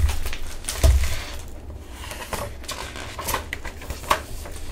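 Pages of a picture book being turned and the book handled: paper rustling and small clicks, with two soft thumps in the first second.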